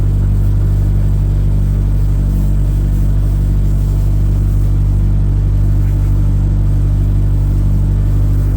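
Engine of a farm machine running steadily at a constant speed, a loud, even low hum.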